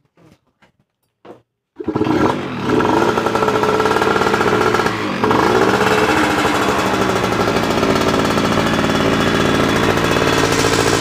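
Yamaha F1ZR two-stroke single-cylinder race engine starts up about two seconds in and runs loud through a modified racing exhaust. It is revved up and down a couple of times, with a crisp, crackly exhaust note.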